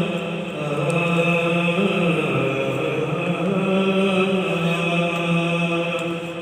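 Devotional Sufi song music between sung lines: long held notes that step from pitch to pitch, easing off near the end.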